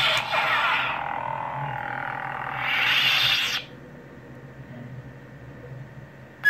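Electronic lightsaber hum from an FX lightsaber's sound board, with a loud burst of effect noise at the start. About three seconds in it swells into a swoosh and then cuts off about half a second later as the blade powers down, leaving only a faint background; a short beep sounds at the very end.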